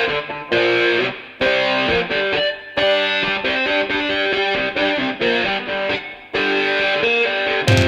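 Live rock music: a distorted electric guitar plays a riff on its own, in phrases separated by short breaks. Near the end, drums and bass come in loudly.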